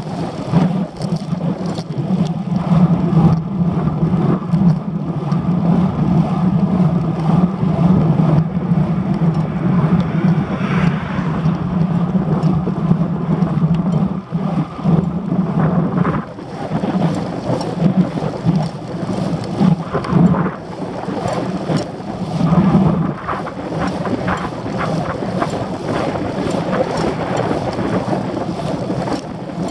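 Wind buffeting the microphone of a handlebar-mounted camera on a moving bicycle: a steady, loud rumble with gusty surges, over the hum of tyres rolling on asphalt.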